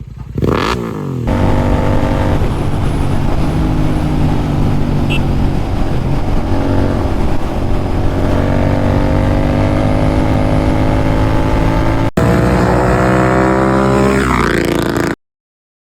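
Royal Enfield Continental GT 650's parallel-twin engine running on the move at steady revs, its pitch climbing slowly over the last several seconds. It opens with a short rise and fall in revs and cuts off abruptly near the end.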